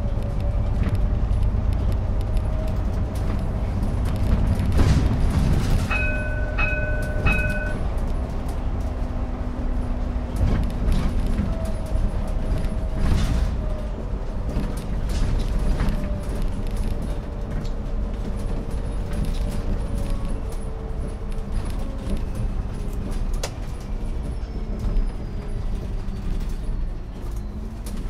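Iveco Urbanway 12 natural-gas city bus under way, heard from on board: a steady engine and road rumble, with the engine note rising and falling as the bus speeds up and slows. About six seconds in, three short electronic beeps sound.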